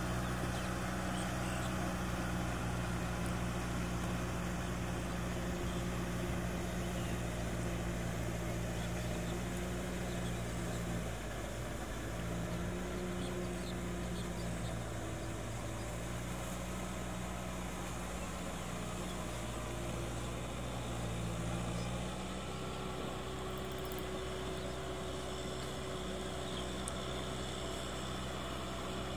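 Kubota M6040SU tractor's diesel engine running steadily under load as it works through paddy mud. Its note shifts slightly a few times, about a third of the way in and again about three quarters through.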